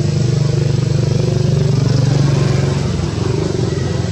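A small engine running steadily at idle, easing off a little about three seconds in.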